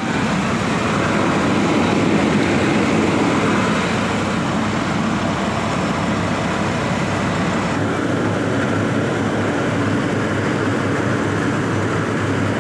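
A tractor-driven rice huller husking paddy, running with a steady, loud mechanical din. The tractor's engine runs under it, and the sound turns a little duller after about eight seconds.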